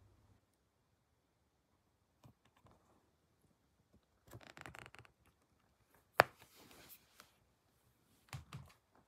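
Close handling noises: brief rustling and crinkling with scattered clicks, one sharp click about six seconds in, and two soft thumps near the end.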